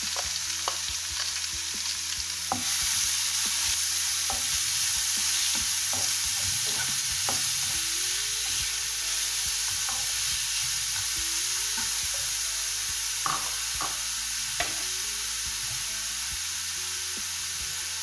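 Finely chopped raw papaya frying in a hot nonstick pan: a steady sizzle, with the slotted spatula scraping and tapping against the pan as it is stirred, a few sharper taps about two-thirds of the way through.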